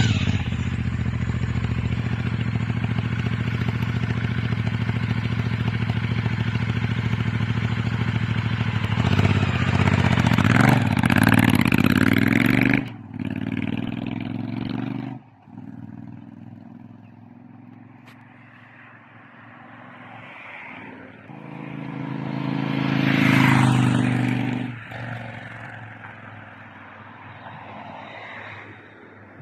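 Royal Enfield Interceptor 650's parallel-twin engine running through a TEC full stainless steel exhaust: a steady idle, then revved with a rising note about ten seconds in. After a break the engine is quieter, and its note swells and fades once more later on.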